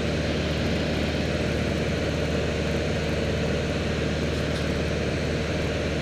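Piper Archer II's four-cylinder Lycoming O-360 engine and propeller running steadily in flight, heard from inside the cockpit.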